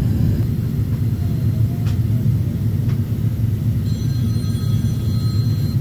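Cabin noise of a Boeing 767-400ER in flight: a steady low rumble of engines and airflow. Faint thin high tones come in near the end.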